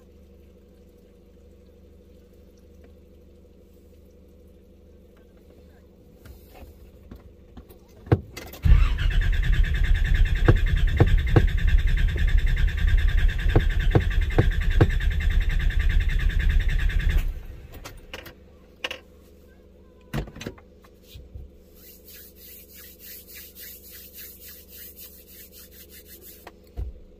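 A Nissan GQ Patrol's starter motor cranks the engine for about eight seconds, starting about nine seconds in, with a high whine, then stops abruptly without the engine catching. The owner suspects water in the distributor and ignition leads after the flood. Faint rapid ticking follows near the end.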